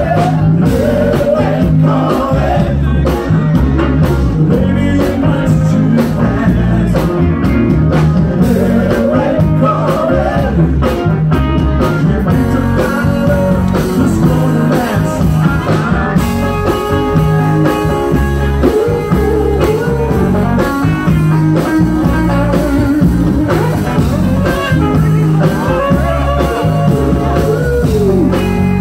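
Live band playing a rock song: a steady drum and bass beat under electric guitar, with some singing.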